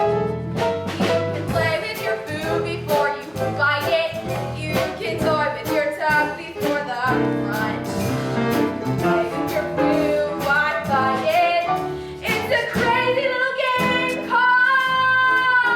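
Stage-musical dance music: instruments playing a lively number with frequent percussive strikes, ending on a long held high note near the end.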